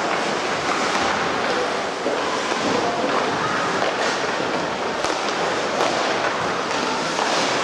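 Ice hockey rink din during play: a steady rushing noise of skates on ice and spectators, with faint shouts and a few sharp stick-and-puck clacks about four, five and six seconds in.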